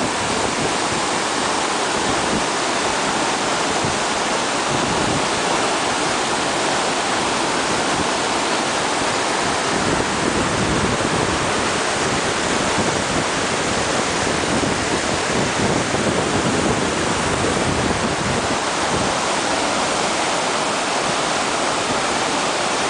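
Glacial meltwater torrent pouring out of the ice cave at a glacier's snout: a loud, steady rush of churning white water.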